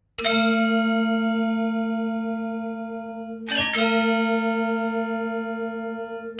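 A deep bell-like chime struck twice, once at the start and again about three and a half seconds in. Each strike rings out and slowly fades, opening the intro music.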